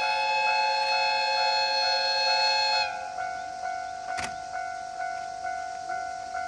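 Diesel locomotive horn (DE10) sounded in one long steady blast of about three seconds, cutting off sharply.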